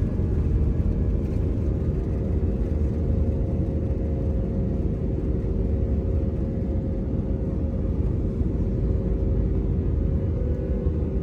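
Steady low rumble of a moving vehicle, with a steady droning hum over it.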